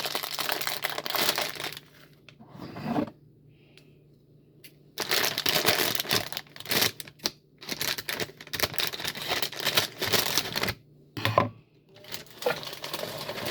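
Plastic mix packet crinkling and tearing as it is handled and opened, in several noisy bursts with short quiet gaps.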